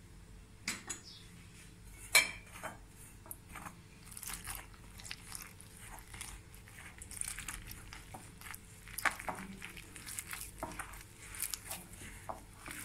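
Flour being mixed by hand in a glass bowl: soft scraping and rustling with light knocks and clicks against the glass, and one sharp clink on the bowl about two seconds in. Water is poured into the flour partway through as the dough is started.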